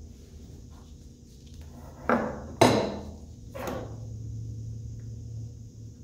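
Metal hand tool, a vernier caliper, being set down on a workbench: two sharp knocks about two seconds in and a softer one a second later.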